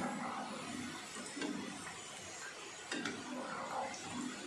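Deep-frying oil sizzling and bubbling around pieces of fried maida dough, with a few light metal clinks as a wire spider strainer and a perforated ladle scrape against the pan.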